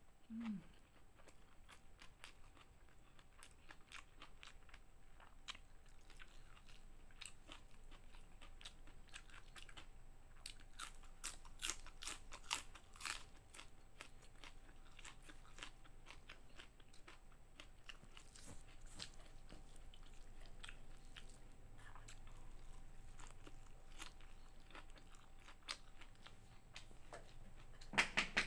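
Close-miked chewing and crunching of food, including raw water spinach leaves, as a run of crisp crunches that is loudest and densest around the middle.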